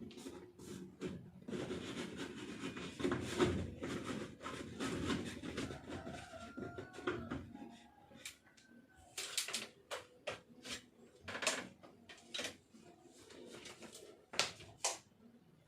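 Plastic cover being handled and fitted onto an LED ceiling lamp. First there is rustling and scraping, then from about halfway a string of sharp clicks and knocks as it is slid and turned into its slots.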